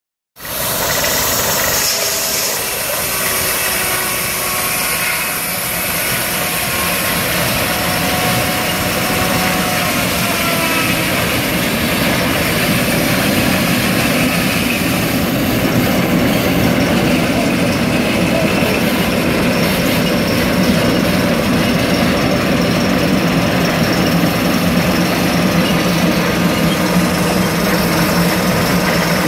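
Old circular sawmill running: the big saw blade and its drive machinery making a loud, steady mechanical drone.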